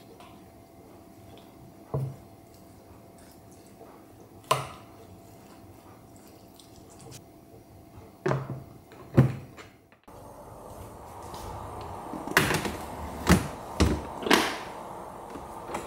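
A wooden spoon tapping lightly on a glass food container, then the clip-lock lid's plastic flaps snapping shut twice, about eight and nine seconds in. After that, several knocks and bumps as the container is pushed onto a refrigerator shelf.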